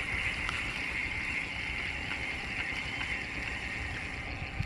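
Baitcasting fishing reel whirring steadily as a hooked fish is reeled in on a bent rod, stopping near the end, over low wind and water rumble.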